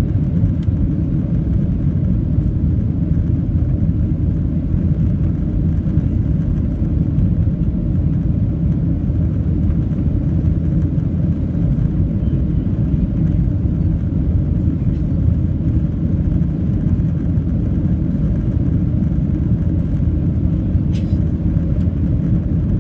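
Steady low rumble of a Boeing 737-700's CFM56 jet engines and rushing airflow, heard inside the passenger cabin during the climb after takeoff. A faint click near the end.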